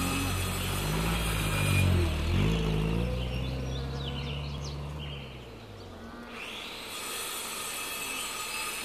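A motor vehicle's engine running, its pitch dipping and climbing again about two seconds in, then fading away after about five seconds, leaving a steady background hiss.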